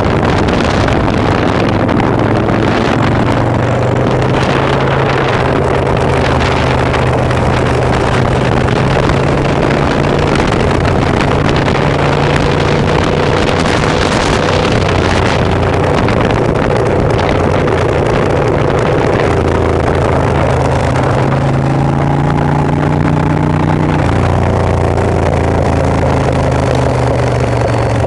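Motorcycle engine running steadily while riding at road speed, with wind rushing over the microphone. The engine note shifts lower about three-quarters of the way through.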